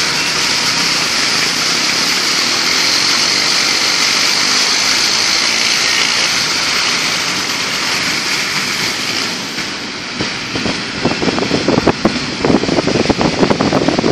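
Car driving through floodwater, with a steady hiss of water spray thrown up by the tyres. About ten seconds in the hiss fades and uneven, rough buffeting takes over.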